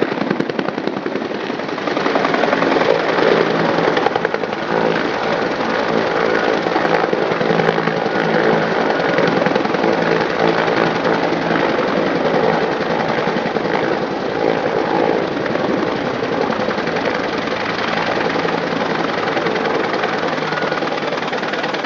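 Helicopter rotor and engine running close by: a rapid, steady blade chop over a steady whine.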